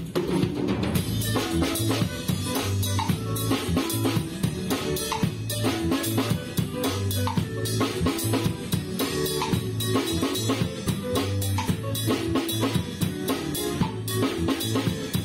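Acoustic drum kit played in a steady, busy groove, with bass drum, snare and Meinl cymbal hits, over backing music with a held bass line.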